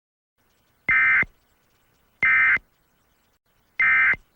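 Three short, shrill bursts of Emergency Alert System SAME header data tones, each about a third of a second long and evenly spaced about a second and a half apart, signalling the start of a new alert.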